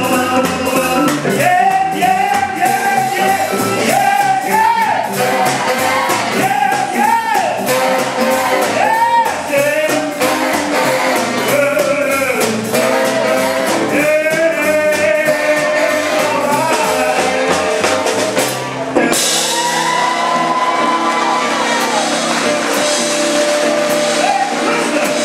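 Live jump-blues band: a male singer shouting the vocal over horns, electric guitar and drums keeping a steady beat. About three-quarters of the way through the singing stops, the low end drops away suddenly and a held note carries on over the band.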